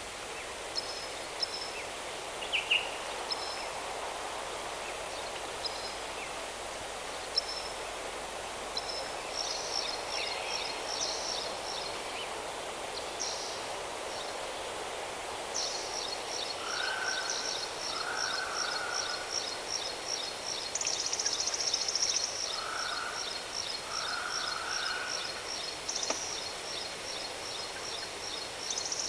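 Wild birds singing and calling over a steady rushing background. Scattered short high chirps come first; from about halfway in, a long run of rapid, high, trilled notes goes on, with a lower short call repeating several times.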